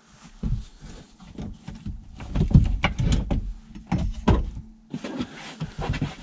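A fabric seat cover being tugged and worked loose from a car seat's backrest and headrest: an irregular run of knocks, thumps and rustles, busiest in the middle.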